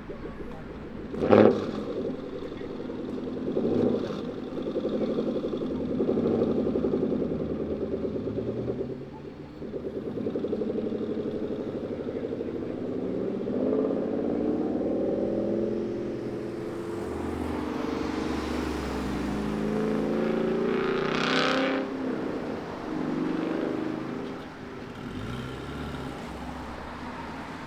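Car engines revving and accelerating away, rising and falling in pitch, with a sharp bang about a second in.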